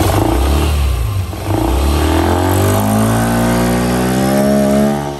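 Yamaha Aerox 155's single-cylinder scooter engine revved with the CVT cover off, turning the newly fitted Pitsbike pulley set, drive belt and Daytona clutch. A short rev at first eases off about a second and a half in, then the engine climbs steadily in pitch for several seconds before dropping back near the end.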